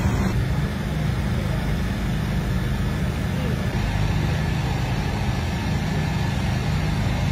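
A steady, loud low rumble, engine-like, with faint voices in the background.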